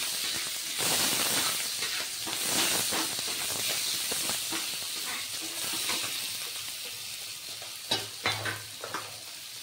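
Sliced onions sizzling in hot oil in a kadai, stirred with a long metal spatula that scrapes the pan. The sizzle eases off gradually, and a few sharp scrapes or knocks of the spatula come about eight seconds in.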